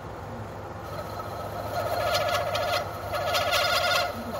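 Manual lathe turning, its cutting tool chattering against a mould's angular pin in short bursts of a rapid pulsing squeal, twice in the second half. The tool is not biting well into the pin.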